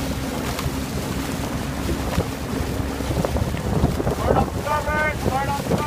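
Wind buffeting the microphone over splashing, churning water as the oars of a four-person sculling boat dip and pull close by, with a low steady hum underneath. A few short pitched calls sound near the end.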